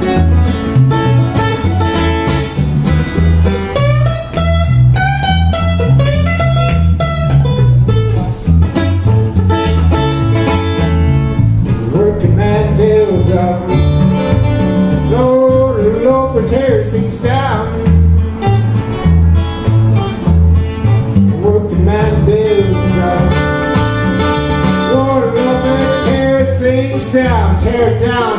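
Steel-string acoustic guitar played solo: an instrumental break with a steady, even pulse of alternating bass notes under picked lead lines that include string bends.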